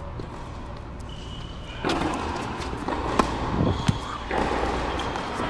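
Sharp knocks of a tennis ball in play, two of them about three seconds in, with the scuffing of players moving around the court, picked up by a wrist-worn watch microphone.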